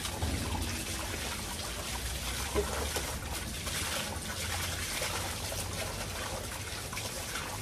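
Water from a garden hose running steadily over a wet husky's coat and splashing onto the ground as the dog is bathed.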